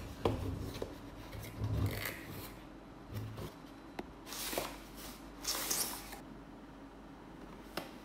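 Cardboard packaging handled by hand: the flaps of a brown cardboard carton are rubbed and bent, with low bumps. About halfway through, a retail box slides out of the carton with two scraping swishes, and there is a light tap near the end.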